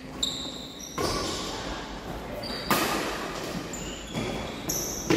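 Badminton doubles rally: sharp racket hits on the shuttlecock about three times, roughly every second and a half, each trailing off with echo, and short high shoe squeaks on the court floor in between.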